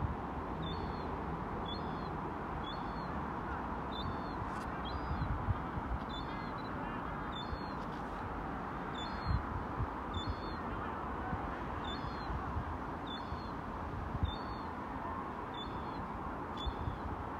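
A short, high double chirp repeating evenly about one and a half times a second, over a steady outdoor wash of wind and distant rumble with occasional low thumps.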